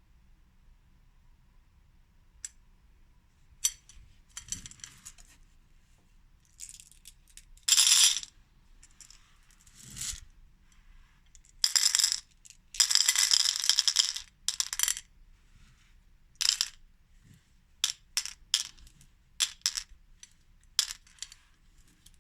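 Skittles falling and clattering onto a plate in a string of separate pours, the longest lasting about two seconds around the middle. Near the end come many single clicks as pieces drop one at a time.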